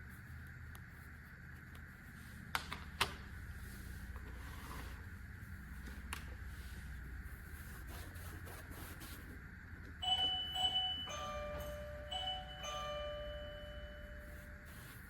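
Two sharp clicks, then about ten seconds in a short electronic chime of several held, pitched tones stepping between notes, over a steady hum and hiss.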